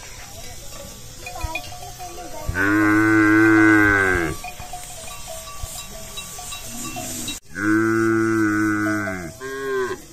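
Water buffalo calling: two long, loud moos, each nearly two seconds, the first about two and a half seconds in and the second past the middle, then a short third call near the end.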